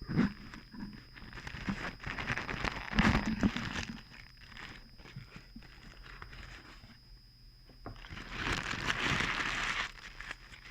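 A bag being torn open and crinkled by hand, in two bouts of rustling and crackling, the second near the end.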